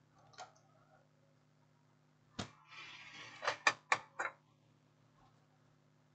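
TV circuit boards being handled on a workbench. There is a sharp knock, then a short scrape, then four quick clicks and knocks as a board is lifted and shifted over another, above a low steady hum.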